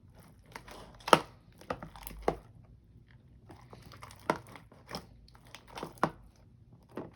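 Glue-and-activator slime being stirred in a container: irregular sticky squelching with sharp clicks, the loudest about a second in and again about four seconds in.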